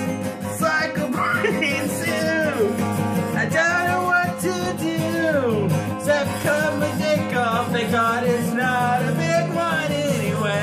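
Music: a voice singing without clear words, sliding up and down in long glides, over a steady instrumental backing.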